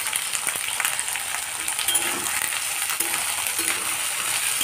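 Green peas and onions sizzling in mustard oil in a steel kadhai, with a metal spatula stirring them and clicking and scraping against the pan many times.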